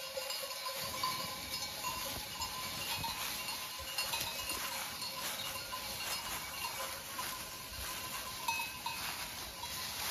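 Bells on a grazing goat herd clinking irregularly, with the rustle of the animals moving over dry fallen leaves.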